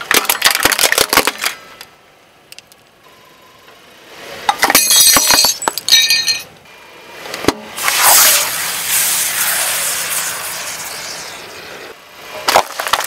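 Crunching and breaking sounds in several bursts of sharp cracks, with a clinking, glass-like shattering about five seconds in. A long crumbling rush starts about eight seconds in and fades over a few seconds, and a few more cracks come near the end.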